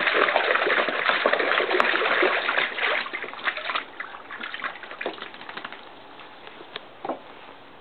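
A Border Collie splashing about in a plastic paddling pool. The water churns hard for the first three seconds or so, then thins to scattered splashes and drips that die away as the dog steps out.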